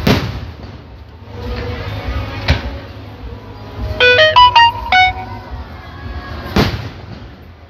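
Fireworks shells bursting three times, with a low rumble of noise between the bursts. About four seconds in, a quick run of six or so short, high electronic notes plays a little tune, louder than the bursts.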